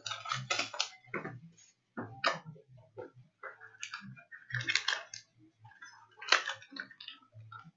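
Panini Chronicles trading card packs and cards being handled and opened: irregular crinkling, clicking and rustling of wrappers and card stock.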